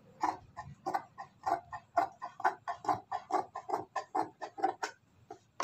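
Large tailor's scissors cutting through cloth in a steady run of short snips, about four a second, stopping shortly before the end.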